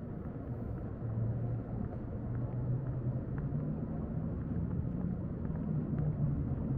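Low, steady engine hum from a motor vehicle, growing gradually louder, with a few faint clicks.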